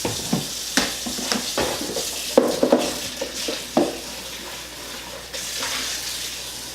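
Dishes and utensils clinking and knocking together several times in the first few seconds, over a steady hiss that gets a little louder about five seconds in.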